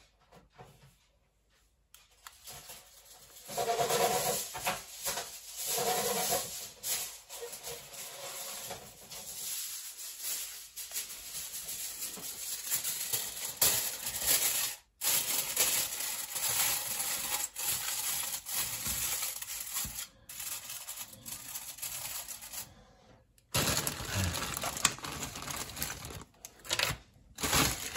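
Aluminium foil being torn off and crinkled and pressed into a small tray shape, a long run of irregular rustles and crackles. Near the end, after a brief pause, a plastic bag rustles as it is handled.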